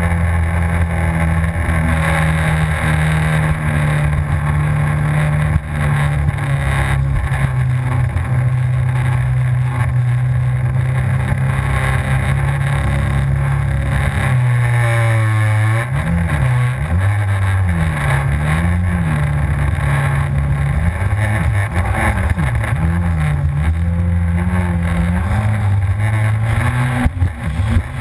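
Yamaha FZS WaveRunner engine running at steady high revs. About halfway through the revs drop, then rise and fall several times before holding steady again.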